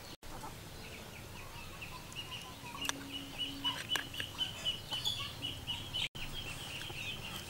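Backyard chickens calling: a rapid run of short, high chirping notes that starts about two seconds in and carries on, with a few sharp clicks over it.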